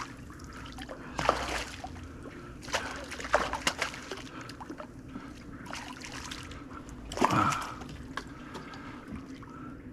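Water splashing and sloshing in irregular bursts beside a kayak as a hooked sheepshead is fought to the surface.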